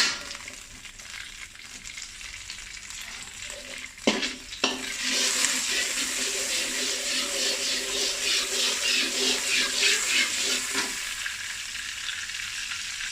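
Salted butter sizzling as it melts in a hot pan. There is a sharp knock at the start and another about four seconds in, after which the sizzling gets louder with a fast ripple, then eases off near the end.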